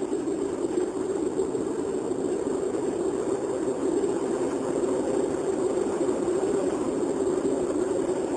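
Steady in-cabin drone of a 1996 Daewoo Cielo being driven, engine and road noise, picked up by a mobile phone's microphone.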